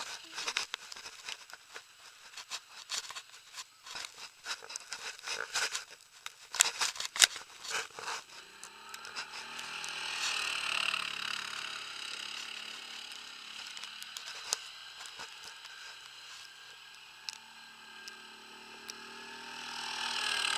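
Quad bike (ATV) engine running as it circles on snow, getting louder as it passes close about ten seconds in and again near the end. Before that, a stretch of sharp crackles and knocks.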